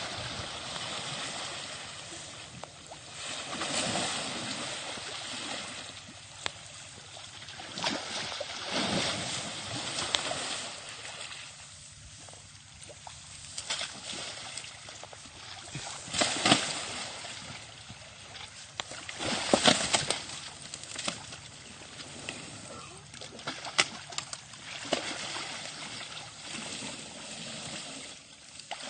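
Muddy water sloshing and splashing around an Asian elephant wading in a pond, with a few louder splashes.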